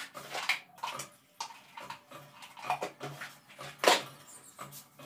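Clatter of plastic jars and kitchen containers being picked up and set down on a shelf: irregular knocks and rattles, the loudest about four seconds in.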